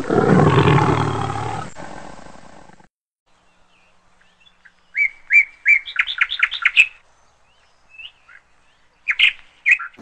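A loud rushing noise fades away over the first two seconds or so. Then a small songbird sings a run of sharp, repeated notes that speeds up, followed by a few scattered chirps.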